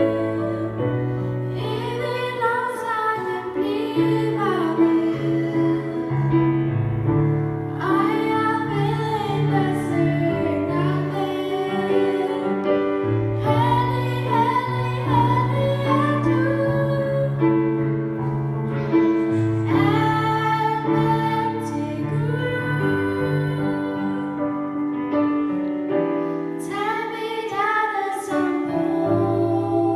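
Two young female voices singing a Danish song as a duet into microphones, over piano accompaniment of held chords.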